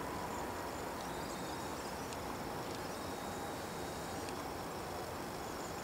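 Panavia Tornado IDS's twin RB199 turbofans running at idle as the jet taxis: a steady rush with a faint whine sliding slightly lower in pitch.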